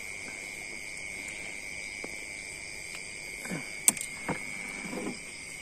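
A steady chorus of night insects, crickets among them, trilling high and unbroken. Over it come a few short knocks and rustles as a wet fishing net is hauled into a wooden boat, with one sharp click shortly before the end.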